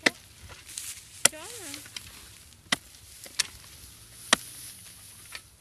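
A hand hoe chopping into hard, dry soil while digging out a vole burrow: five sharp strikes at uneven intervals, roughly a second apart, with fainter knocks of loosened clods between them.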